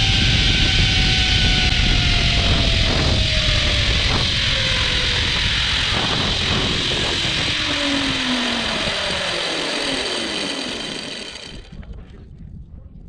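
Zipline trolley running fast along the steel cable with heavy wind rush, a whine from its pulleys falling slowly in pitch as the rider slows. The rushing dies away about a second before the end.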